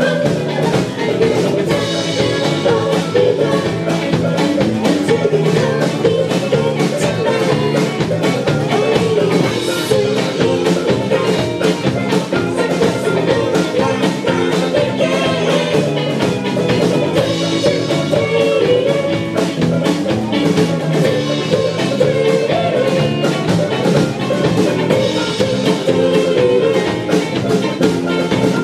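A rock band playing live, with drum kit, guitars and singing.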